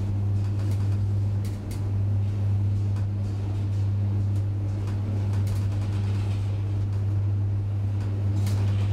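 Traction elevator car with its doors shut, giving a steady low electrical hum, with a few faint clicks.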